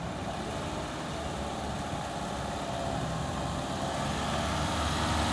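Car engine running steadily, a low rumble.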